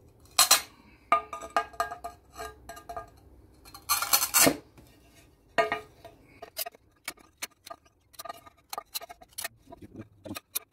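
Glazed ceramic tile being nibbled with hand tile nippers: irregular sharp snaps and clinks as small chips break off the tile and drop, with a longer crunching stretch about four seconds in.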